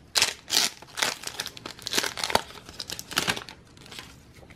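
Foil wrapper of a Pokémon trading card booster pack crinkling and tearing as it is opened by hand, a run of sharp crackly rustles that tails off near the end.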